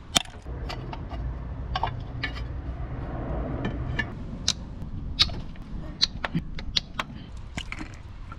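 Hand tools clinking and clicking against metal parts in a Honda S2000's engine bay while the coil packs and spark plugs are being taken out. The sharp clicks come irregularly, a dozen or so, over a low rumble.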